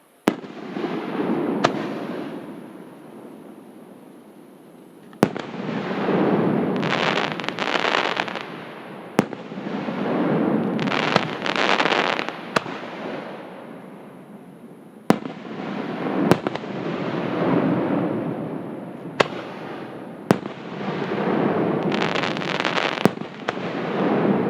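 Aerial firework shells bursting close by: about a dozen sharp bangs a few seconds apart, each followed by a long rolling swell of noise. Several of the swells carry dense crackling.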